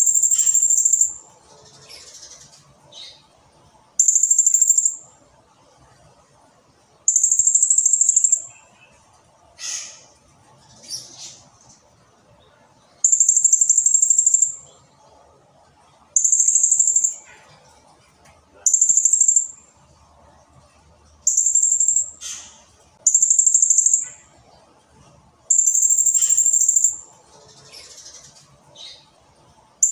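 Blue-crowned hanging parrot (serindit) calling: shrill, very high trills about a second long, repeated about ten times at intervals of two to three seconds, with softer chirps between.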